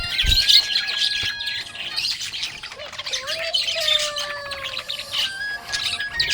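Budgerigars chirping and chattering, a dense run of quick high chirps and squawks with a few longer sliding whistles near the middle.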